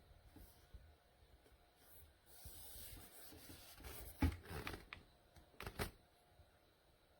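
Faint handling noise indoors: rustling and rubbing, with a few sharp knocks and clicks, the loudest about four seconds in and a quick pair near six seconds.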